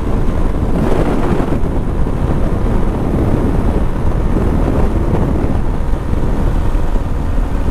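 Wind rushing over the microphone of a moving motorcycle, with the bike's engine and road noise running steadily underneath.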